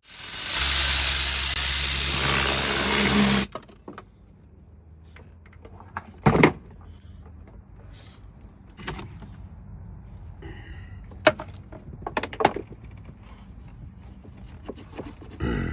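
A loud whooshing transition effect lasting about three and a half seconds, cutting off abruptly. It is followed by quieter clicks, knocks and scrapes of hands and a small tool working in the mud-filled plastic A/C blower housing behind a car's dashboard.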